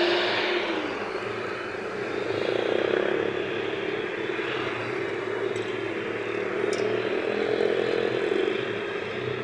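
Road traffic: engine and tyre noise of passing vehicles, swelling about three seconds in and again near the end. A single steady tone fades out within the first second.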